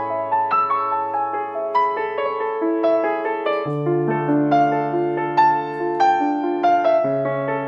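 Piano music: a steady run of single struck notes over held low bass notes, the bass changing twice.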